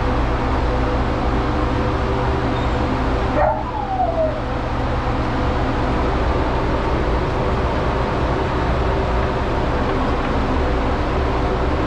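Pet blow dryer running steadily, a loud rush of air. About three and a half seconds in the rush dips briefly and a short high whimper from the dog is heard.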